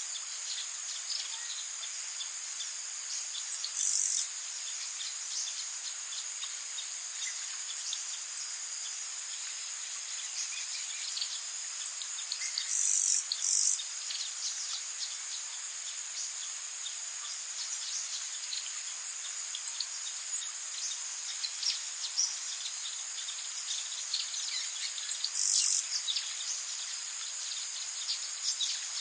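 Tropical rainforest night ambience: a steady high drone of insects, crickets trilling, with a louder high buzzing insect call cutting in several times. Faint scattered chirps and ticks run underneath.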